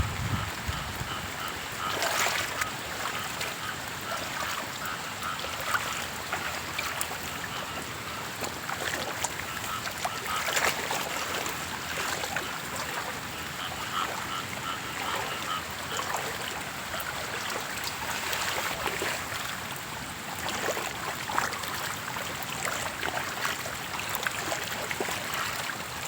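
Floodwater running in a steady rush, swelling a little now and then.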